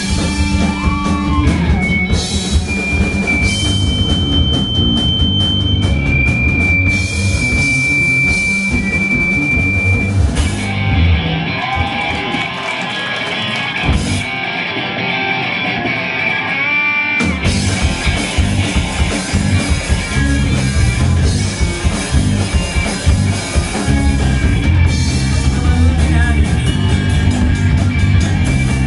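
A three-piece rock band (electric guitar, electric bass and drum kit) playing a song live at full volume. About ten seconds in, the bass and cymbals drop away for a sparser break of several seconds, then the full band comes back in.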